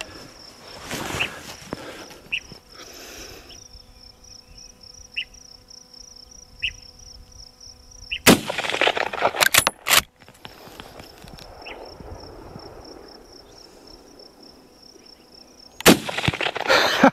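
Two rifle shots from an old Winchester lever-action, about seven and a half seconds apart, each trailing off in a rolling echo, with a few sharp clicks of the lever being worked a second or so after the first. An insect trills steadily in the background between the shots.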